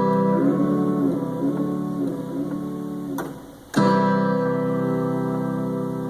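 Ensoniq SQ-2 synthesizer playing a guitar-like patch through small plug-in speakers. A held chord with shifting notes gives way to a fresh chord struck just under four seconds in, which then rings on.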